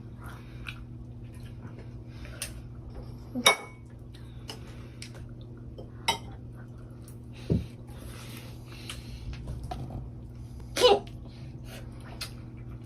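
Cutlery and dishes clinking at a meal: scattered sharp clinks, the loudest about three and a half seconds in and again near eleven seconds, over a steady low hum.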